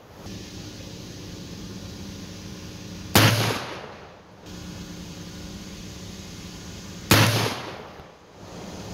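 Two shots about four seconds apart from a Colt 1860 Army open-top black-powder revolver with a 5-inch barrel, loaded with .451 round balls over 30 grains of FFF Triple Seven, each shot trailing off in a short echo. A generator hums steadily underneath.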